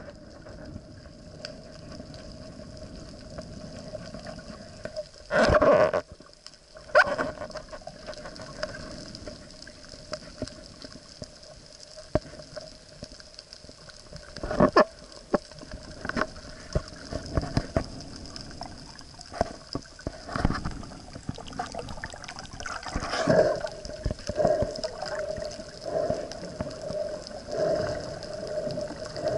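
Underwater sound picked up by a submerged camera: a steady hum and hiss with several loud, brief bubbling knocks, the loudest about five seconds in and a run of shorter ones near the end.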